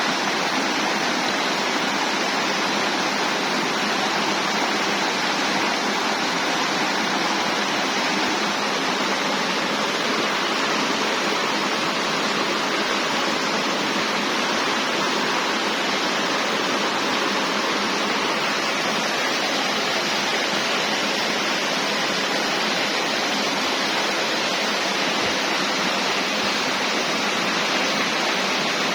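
Waterfall: a steady, even rush of falling water with little deep rumble.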